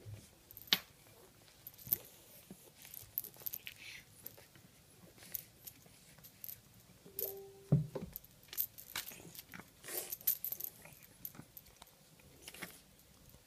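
A cat playing with a fabric fish toy on a string on a wooden floor: irregular sharp clicks and rustles as the toy is batted and dragged, with a thump about eight seconds in and a short squeaky note just before it.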